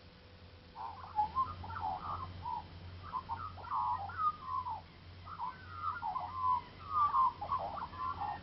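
A bird or birds calling in a rapid, irregular run of short chattering notes, starting about a second in and continuing without a break.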